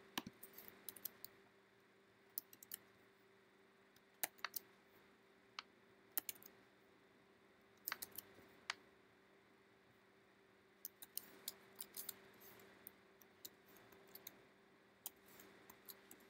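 Faint, scattered computer keyboard key presses, some in quick pairs or small clusters, over a faint steady hum.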